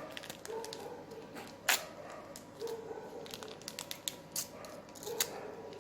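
Small vanilla sachets being torn open and rustled, with scattered light clicks and one sharper tap about two seconds in.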